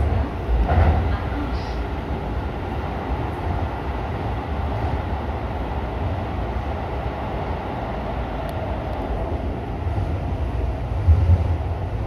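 Electric subway train running at speed, heard from inside the car: a steady low rumble with rail and wheel noise, swelling a little louder now and then.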